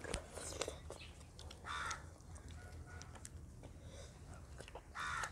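Close-miked eating sounds of chicken curry eaten by hand: chewing, wet lip smacks and finger licking, heard as many small clicks. There are two short harsh noises, one about two seconds in and one near the end, over a low steady hum.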